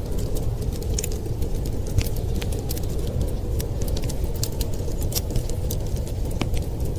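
Wood fire crackling, with many small sharp pops and snaps scattered irregularly, over a steady low rumble of blizzard wind.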